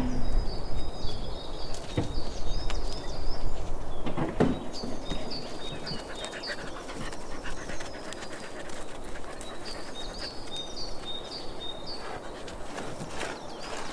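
A dog panting, with repeated short, high chirps and a few light clicks in the background.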